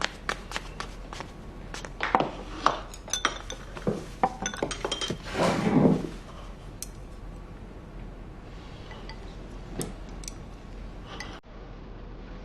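Dishes and cutlery clinking at a meal: many short clinks of tableware, a longer, louder clatter about halfway through, then only a few scattered clinks.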